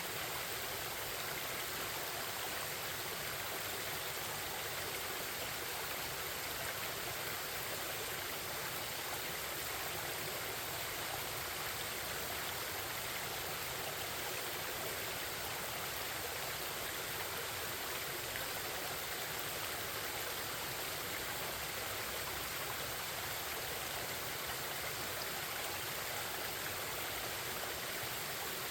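Forest stream flowing steadily, a constant babbling rush of water.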